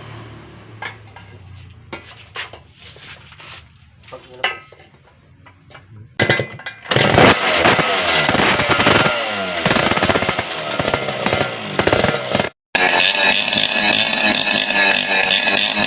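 Two-stroke motorcycle engine revving up and down over and over, loud from about six seconds in, after a stretch of quieter clicks and knocks.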